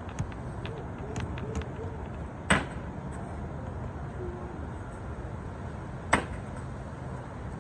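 Cornhole bags landing on a cornhole board, sharp slaps about three and a half seconds apart, one after another as the bags are thrown.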